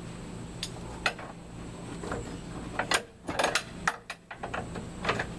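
Sharp metallic clinks and clanks of hand tools and loose metal parts, a couple of single clinks and then a quick run of them about three seconds in, over a steady low hum.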